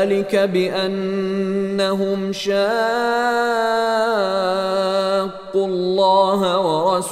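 Quran recitation in Arabic: a single voice chanting a verse in slow, melodic tajweed style, drawing out long held notes with ornamented turns, with a brief pause a little past five seconds.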